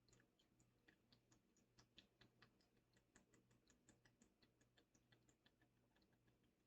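Near silence with faint, irregular crackling ticks, a few a second: carbonated Coke fizzing in an opened 2-liter bottle.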